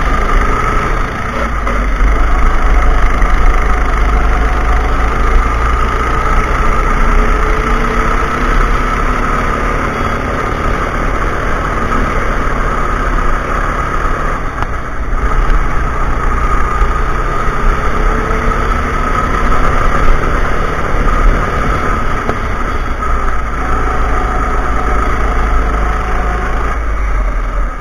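Go-kart engine running flat out around a track, its pitch climbing and falling again and again as the throttle opens and closes through the corners, with a heavy low rumble of wind on the microphone.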